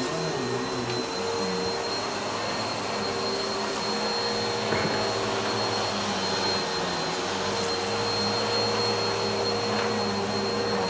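Vacuum cleaner running steadily: a constant whine over a rushing hum.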